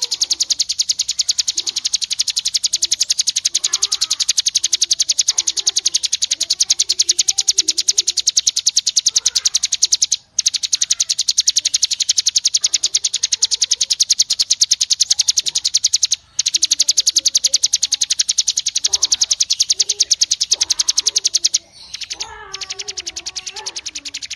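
Recorded songbird 'tembakan' song for masteran: a very fast, dense rattling trill of high notes repeated without pause, with softer lower warbling notes underneath. It breaks off briefly twice. Near the end it gives way to a quieter passage of lower whistled notes.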